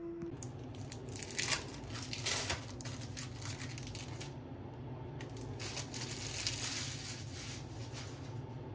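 Crinkling and rustling with small clicks, in two spells, about a second in and again past the middle, over a steady low hum.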